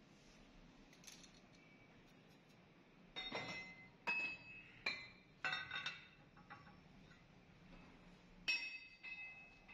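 Steel tools and parts being handled at a lathe, clinking and clanking against each other: about six sharp metal knocks, each ringing briefly, the loudest near the end.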